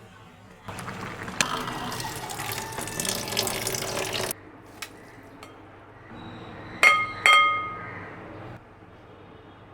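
Water running from a kitchen tap for about three and a half seconds, then shut off abruptly. A few seconds later come two sharp, ringing clinks of kitchenware.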